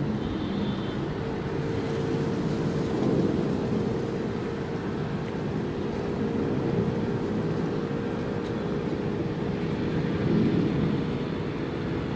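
Steady low rumble with a constant hum from the engines of the car ferry Mega Regina as it runs slowly on its approach into port.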